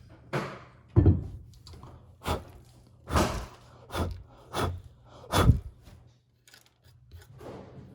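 Seven dull thunks, roughly a second apart, then only faint handling noises for the last couple of seconds.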